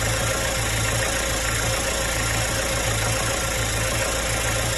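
The Fisher 30 Northeaster motorsailer's inboard marine engine running steadily, loud and close.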